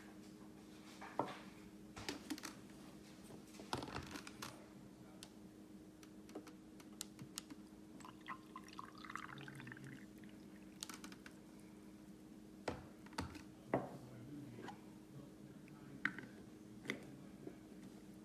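Scattered light clicks and knocks of small objects being handled, over a steady low hum.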